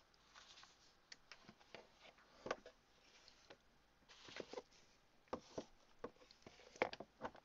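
Faint, scattered light clicks and taps, about a dozen, the clearest about two and a half seconds in.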